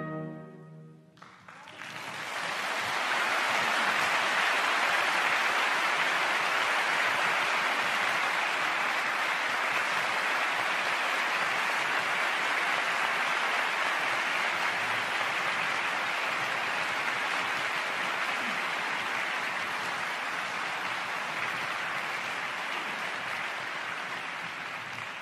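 The last orchestral note dies away, then a concert-hall audience applauds steadily from about a second in, thinning slightly near the end.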